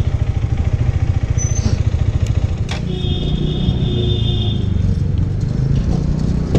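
Motorcycle engine running at low speed with a fast, even low putter, the note smoothing out a little under three seconds in. A brief high-pitched tone sounds over it for a second or so in the middle.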